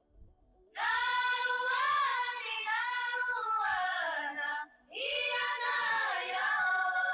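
A high voice singing a melody of long held notes that slide in pitch. It comes in about a second in and breaks off briefly just before the five-second mark.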